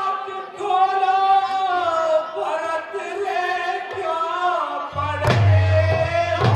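A performer singing a slow, drawn-out melodic line through a stage microphone and loudspeakers. About five seconds in, drums come in with a deep, steady accompaniment and sharp strokes.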